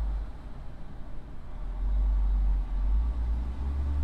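Low rumble, swelling about two seconds in and again near the end.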